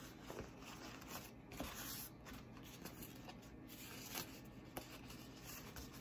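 Faint, irregular rustling and crinkling of blue sterilization wrap paper as it is folded over and pressed flat by hand around a bundle of instruments.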